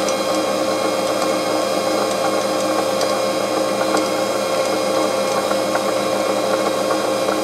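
Grizzly G0745 micro metal lathe running with no cut, its motor and spindle turning the chuck with a steady whine, spinning smoothly. A few faint ticks sound over it.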